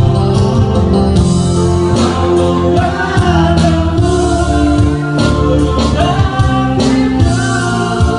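A man singing a slow song into a microphone, with live electronic keyboard accompaniment playing sustained chords under the melody.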